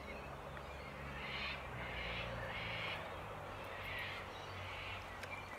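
A bird calling faintly outdoors, a series of short separate calls over a low steady background hum.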